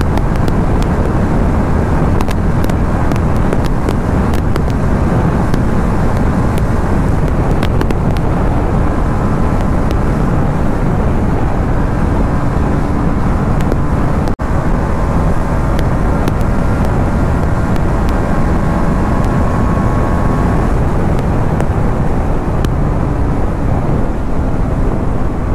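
Motorcycle on the move: steady wind rush over the microphone, with the engine's drone faintly underneath, shifting slightly in pitch.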